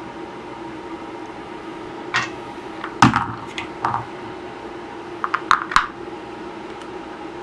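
Hard metal parts clinking and knocking as wheels are worked onto an air compressor's axles: a scrape, one sharp knock about three seconds in, and a quick run of clicks near the end.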